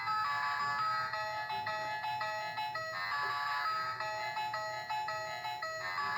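A musical dog toy playing a simple electronic tune: clean beeping notes, a few a second.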